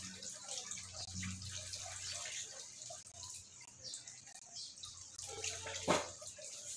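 Water splashing and dripping into a plastic basin as it is poured over a wet toy poodle standing in it, with a single sharp knock about six seconds in.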